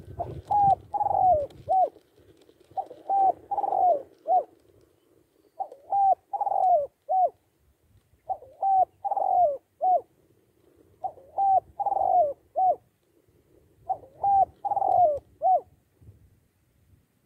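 Spotted dove cooing: a phrase of four or five coos, one of them longer and falling in pitch, repeated six times about every three seconds.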